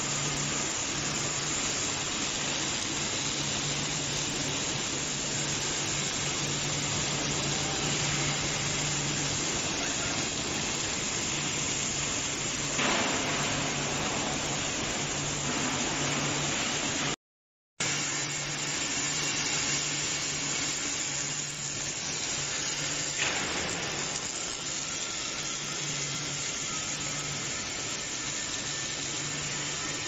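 Robotic MIG welding arc, wire-fed, running a long continuous seam on heavy steel: a steady hiss and crackle with a low hum underneath. The sound drops out for a moment just past halfway.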